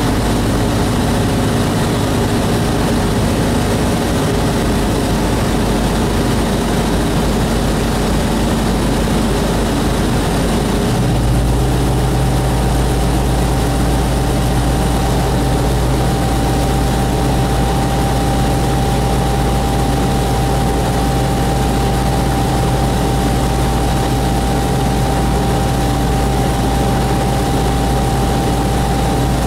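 Light aircraft's engine and propeller running steadily in flight, heard loud from inside the cockpit. About eleven seconds in, the engine note changes to a lower hum with a thin steady whine on top.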